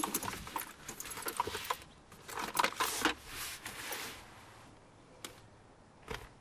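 A set of car keys jangling and clinking, a quick run of light metallic clicks over the first few seconds, with a couple of single clicks near the end.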